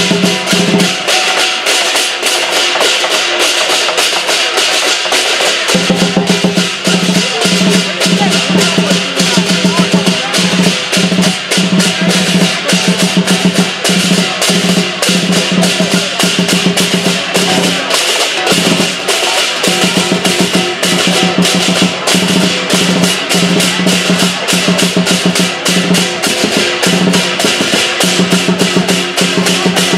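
Lion dance percussion: a big drum with crashing cymbals playing a fast, dense beat, over a low steady ring that drops out for a few seconds near the start and again briefly past the middle.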